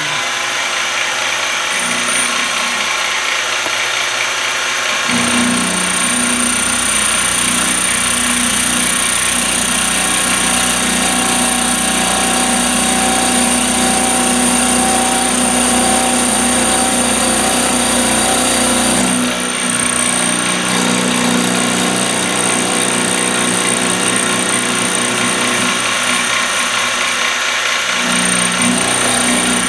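Benchtop milling machine running, its end mill cutting a brass block: a steady motor hum and high whine under the cutting noise. The sound grows fuller about five seconds in and dips briefly about two-thirds of the way through.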